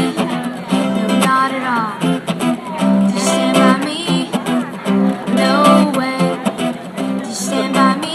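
Song played live on a strummed acoustic guitar, with steady rhythmic chords.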